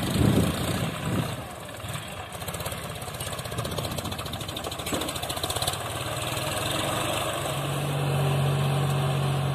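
John Deere farm tractor's diesel engine running, with a fast even pulse; about two thirds of the way in, a steady low engine note grows louder as the engine works harder.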